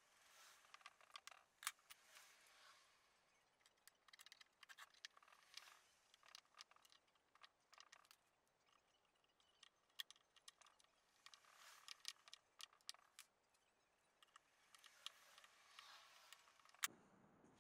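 Faint, scattered clicks and light scrapes of a long screwdriver working at the brass cup handles of a wooden chest of drawers. There is one sharper click near the end.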